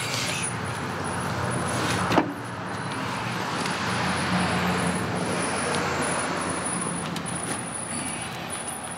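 Small two-stroke engine of a Mantis rototiller running steadily at idle, a little louder in the middle, with one sharp click about two seconds in.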